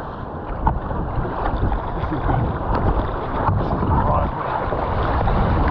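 Water rushing and splashing along the hull of an Epic V7 surfski riding waves, with paddle blades dipping in now and then, under heavy wind buffeting on the microphone.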